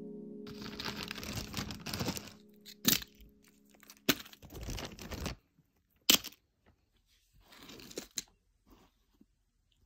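Plastic bag crinkling and rustling in short bursts as beaded phone straps are taken out of it, with a few sharp clicks in between. A held harp note of background music dies away in the first two seconds.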